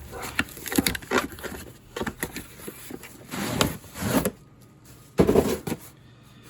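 Packaging and a plastic tool case being handled: scattered clicks and scrapes, two rustles past the middle, and a heavier knock with rustling about five seconds in, the loudest sound.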